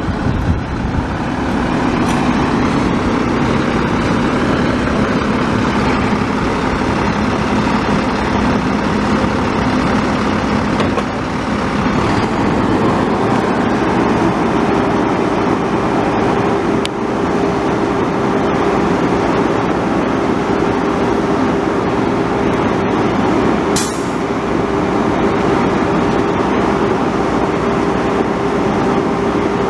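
Garbage truck running with a steady whine that steps up to a higher pitch about twelve seconds in, and a short burst of air hiss near the end.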